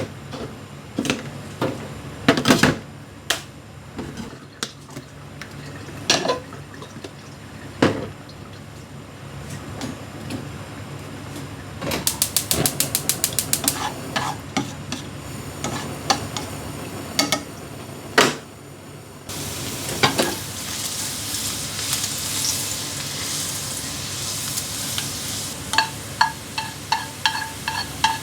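Cooking sounds: scattered knocks of utensils and cookware, then a quick run of about a dozen even taps. About two-thirds of the way through, food starts sizzling in a hot pan and keeps sizzling steadily, with metal clinks of a utensil against the pan near the end.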